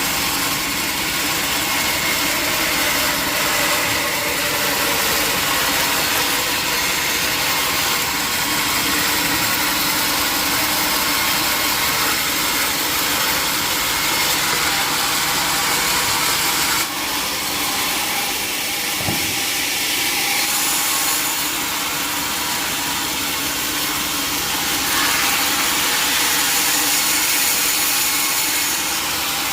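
Sawmill running: a steady, loud machine noise from the engine-driven saw as it works through wood, with a brief dip and a change in the sound about 17 seconds in.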